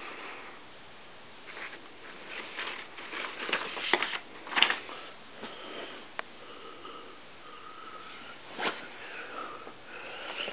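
Close rustling and handling noises with a few sharp clicks, the loudest about four and a half seconds in, while a printed quick-start sheet and the camera are moved about.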